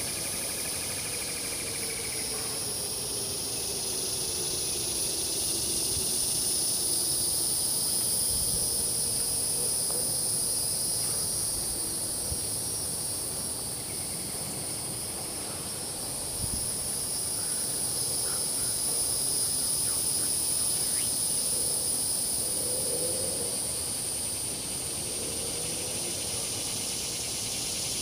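Steady high-pitched chorus of insects, constant throughout. A faint low tone falls slowly in pitch over the first few seconds.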